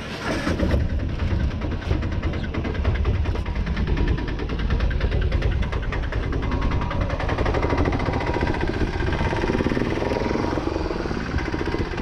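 An engine running steadily close by, with a low rumble and a fast, even beat.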